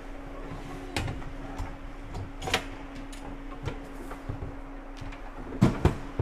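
Ice hockey rink sound: a steady hum under scattered sharp clacks of sticks and puck on the ice, with two louder knocks in quick succession near the end.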